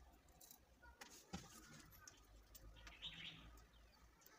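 Near silence: faint room tone with a couple of light clicks about a second in and a faint high chirp about three seconds in.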